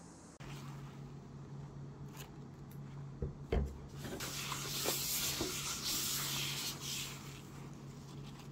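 A paper towel rubbing around the inside of a new Altenbach stainless steel frying pan, wiping out the factory polishing compound, after a couple of sharp knocks about three seconds in.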